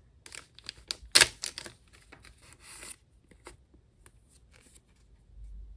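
Resealable plastic zip bag of glitter photocard sleeves pulled open with a crackling rip, then the plastic crinkling as a sleeve is drawn out. Most of the sound falls in the first three seconds, loudest about a second in, then only a few faint ticks.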